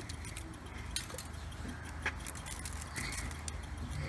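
Glass pepper shaker with a metal cap being shaken, giving light, irregular clicks and rattles, over a steady low hum.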